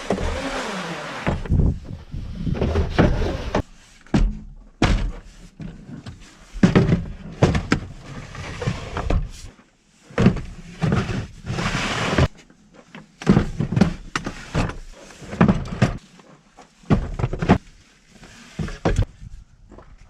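Tools and tool cases being loaded into a square-body pickup's back-seat area, set down and slid onto a plywood platform: irregular thunks and knocks mixed with longer sliding, scraping noises.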